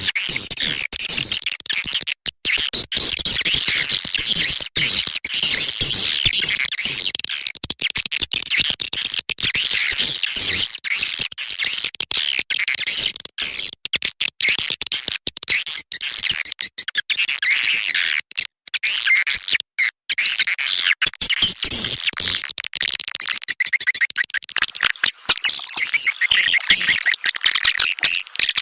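Swiftlet lure call, a recording of dense, high twittering and chirping swiftlet calls played to attract swiftlets to a nesting house. It keeps up without a break in the chirping, cut by many brief silent gaps.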